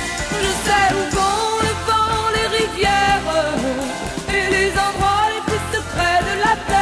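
A French pop song: a lead voice singing a melody over a band accompaniment with a steady beat.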